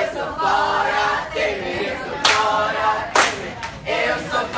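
A group of voices singing together in held notes, with two sharp cracks about two and three seconds in.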